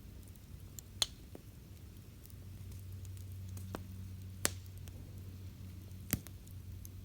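Wood campfire crackling, with scattered small snaps and three sharp pops: about a second in, midway, and near the end. A faint low hum swells under it through the middle.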